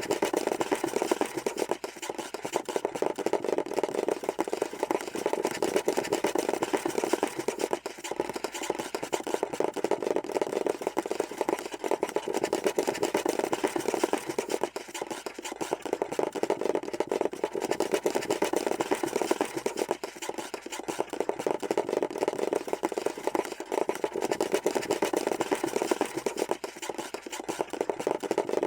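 Scurrying sound effect: a dense, unbroken patter of rapid small taps.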